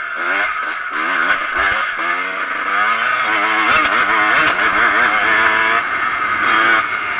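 Kawasaki KX125 two-stroke single-cylinder engine revving, its pitch climbing and falling again and again as the dirt bike accelerates over the track. A steady rush of wind noise sits on the microphone.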